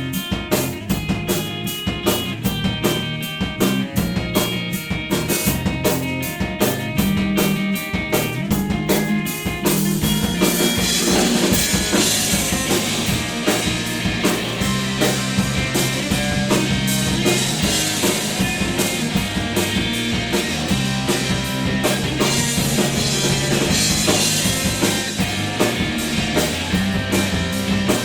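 Electric guitar, electric bass and drum kit, all built from Noto hiba (ate) wood, playing rock together with a steady bass line under guitar notes and crisp drum hits. About ten seconds in, the playing thickens into a louder, denser passage.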